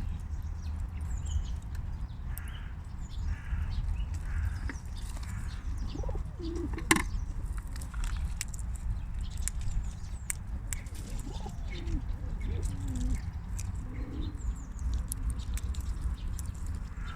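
Baby squirrel sneezing over and over: short, sharp sneezes every second or so, with a louder one about seven seconds in, over a steady low rumble.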